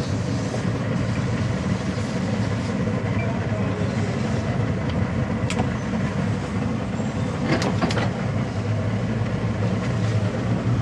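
Towboat's engines running steadily at slow maneuvering speed, an even low hum, with a few faint clicks about halfway through.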